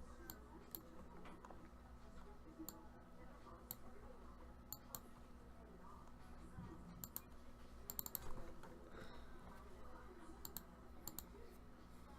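Sparse, faint sharp clicks, a few at a time with a small cluster about two thirds through, over a low steady hum.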